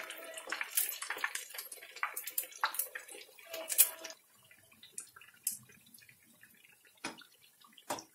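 Sabudana vadas deep-frying in hot oil, a dense crackling sizzle with sharp pops as a perforated metal skimmer turns them. About four seconds in the crackle drops off suddenly to a faint sizzle with a few scattered clicks.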